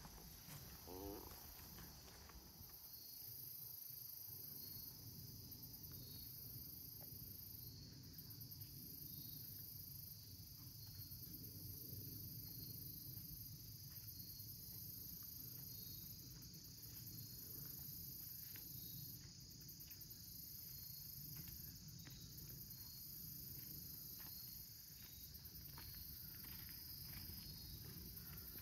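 Faint, steady chorus of crickets and other insects in the woods, a shrill continuous trill with a higher band that pulses on and off every second or two. Soft footsteps and small clicks from walking on the trail sit underneath.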